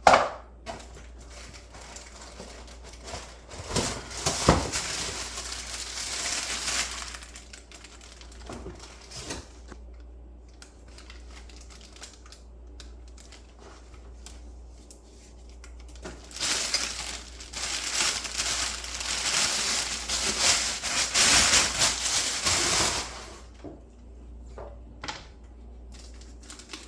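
Packaging crinkling and rustling while garbage disposal mounting parts are unpacked and handled, with scattered clicks and light clatter of small parts; the crinkling comes in two longer spells, the louder one in the second half.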